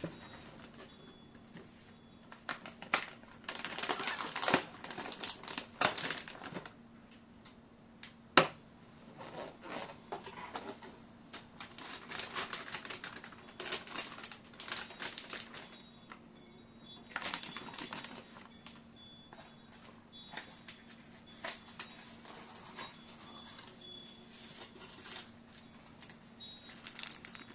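Computer parts and their packaging being handled and unpacked: irregular rustling and crinkling with scattered clicks, and one sharp knock about eight seconds in, over a faint steady low hum.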